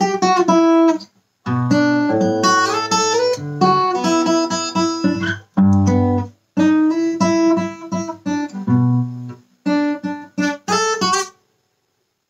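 Acoustic guitar playing a melody with chords, in short phrases with brief pauses between them; the playing stops about a second before the end.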